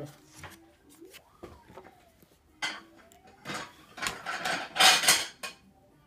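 Metal hard-drive caddy and a 2.5-inch laptop hard drive being handled and fitted together: scattered clicks, then several bursts of metallic rattling and scraping, the loudest about four to five seconds in.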